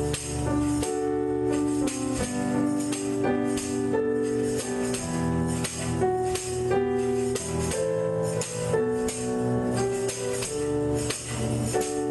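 Instrumental church music: held chords changing every second or so over a steady bass, with percussion keeping a quick beat.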